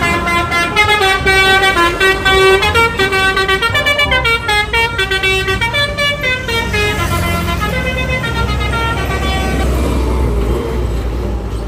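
Bus telolet multi-tone musical horn (Basuri type) playing a quick melody of stepped notes, over the low rumble of the bus. The tune fades out after about eight seconds while the rumble carries on.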